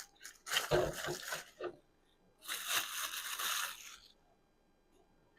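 Rustling and crinkling as a plastic dog water bottle and its parts are handled: a first burst with a dull knock about half a second in, then a second, brighter crinkling burst lasting about a second and a half.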